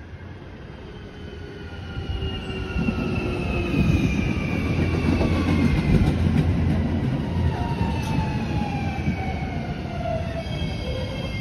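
JR Shikoku 7200 series electric train running alongside the platform. Its motor whine falls steadily in pitch as it slows, over a rumble of wheels on rail that grows loud about two seconds in as the cars come past.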